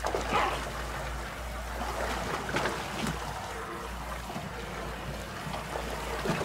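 Water splashing and dripping as large live catfish are hauled up out of a water tank, with a few sharper splashes, over a steady low rumble.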